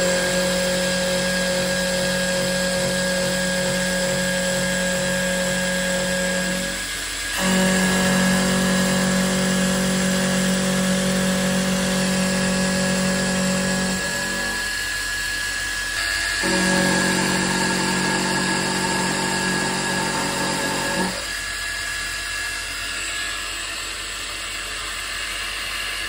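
HBM benchtop mill-drill with a 750 W motor running with a steady whine while an end mill cuts a metal block in three passes, with short breaks about 7 and 15 seconds in. The cutting stops about 21 seconds in, leaving the motor running on its own.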